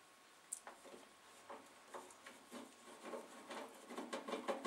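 Phillips screwdriver turning out a screw from the metal top cover of a Denon DN-D4000 CD player. A sharp click about half a second in, then faint irregular scraping and rubbing strokes that grow busier near the end.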